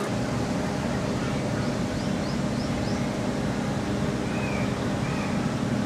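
Steady low rumble of outdoor background noise, with a bird chirping a few short high notes in the middle.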